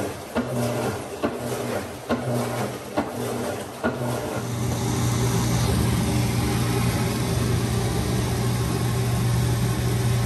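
Washing machine running with a steady electric motor hum; a regular knock sounds about once a second for the first four seconds, then the hum grows louder and steady.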